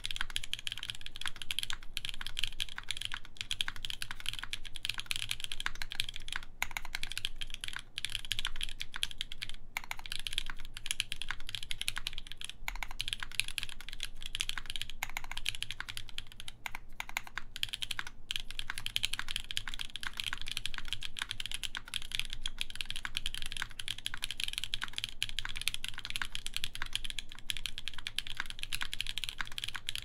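Steady, fast typing on a SINGAKBD Unikorn mechanical keyboard: a dense, unbroken run of key clicks from lubed Creamsicle switches in a full aluminium plate under GMK keycaps.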